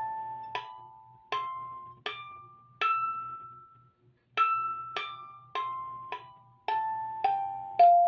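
Espougle 17-key open-box kalimba played one note at a time: the metal tines are plucked in a scale climbing step by step for about five notes, then after a short pause stepping back down. Each note rings and fades before the next.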